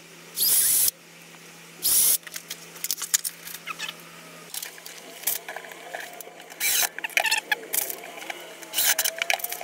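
Cordless drill driving self-tapping screws through a PVC vent-pipe ring, in two short bursts in the first couple of seconds, followed by clicking and rattling as small screws and plastic parts are handled.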